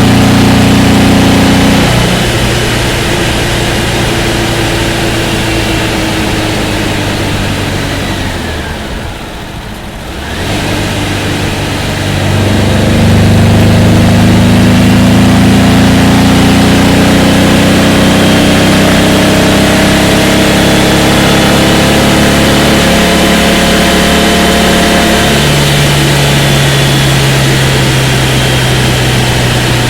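1968 Porsche 912's rebuilt air-cooled flat-four engine running under load: the note falls away and eases off, then builds steadily in pitch as the car accelerates, dropping once near the end as it shifts up a gear and carrying on steadily.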